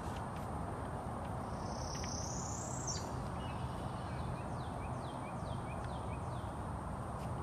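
A bird calling over steady outdoor background noise: one long, high, rising whistle about two seconds in, then a run of about six quick falling chirps.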